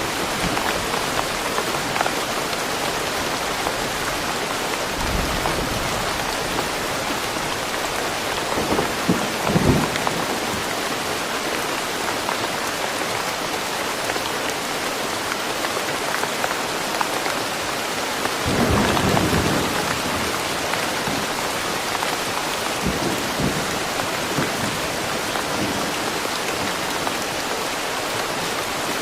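Steady rain falling, with two low rolls of thunder, one about nine seconds in and a longer one just before twenty seconds.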